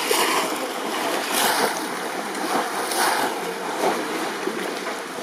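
Shallow muddy pond water sloshing and splashing as bamboo fish traps are worked through it, with louder splashes about a second and a half and three seconds in.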